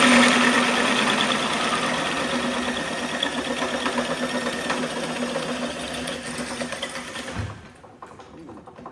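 Power drill running under load, cutting through steel with cutting lubricant on the bit, with a steady motor whine. It runs for about seven and a half seconds, then stops.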